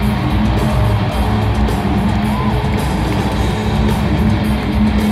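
Loud music with guitar, playing steadily.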